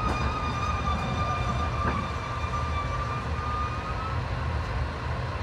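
KiHa 40 diesel railcar drawing to a halt: a low diesel rumble with a high, steady brake squeal whose pitch sinks slightly. The squeal stops about four seconds in as the car comes to rest.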